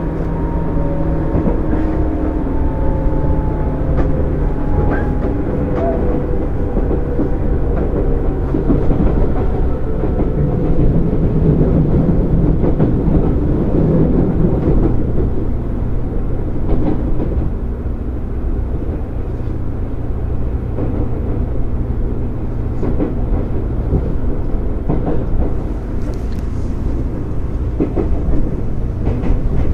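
JR 205 series electric train running, with a motor and gear whine that falls in pitch over the first several seconds as the train slows, then rolling with a steady rumble and wheel clicks over the rail joints.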